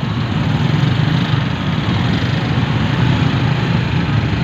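Steady low rumble of motorbike and scooter engines running close by in stopped traffic.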